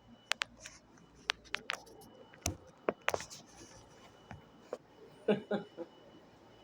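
A run of sharp, irregular clicks and light knocks from objects being handled, with a cluster of louder knocks about five seconds in.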